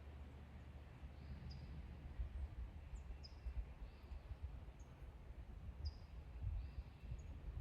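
A bird calling repeatedly: short, high chirps that drop in pitch, one every second or so, over a steady low rumble.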